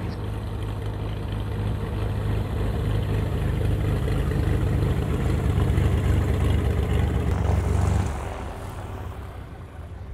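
Piston engine and propeller of a V-tail Beechcraft Bonanza taxiing close by: a steady low drone that grows louder, then drops abruptly to a quieter running sound about eight seconds in.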